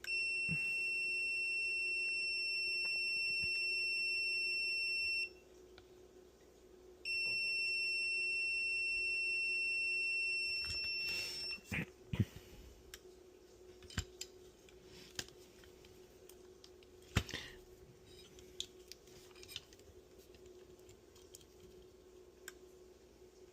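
Multimeter continuity beeper sounding a steady high beep for about five seconds, stopping, then beeping again for about four seconds during a continuity check of the circuit board's traces. After it come scattered light clicks and taps.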